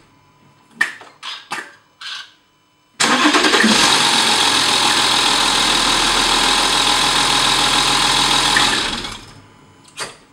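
A few short clicks, then an Audi 3.0 TDI V6 diesel starts suddenly and runs loudly for about six seconds before fading away. The owner reports a rattle for about two seconds just after a warm restart and suspects the timing-chain tensioner or the injectors.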